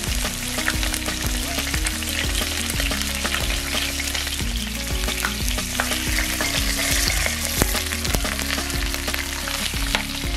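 Rolled, twine-tied pork belly searing in hot oil in a cast-iron pot: a steady crackling sizzle with many small pops.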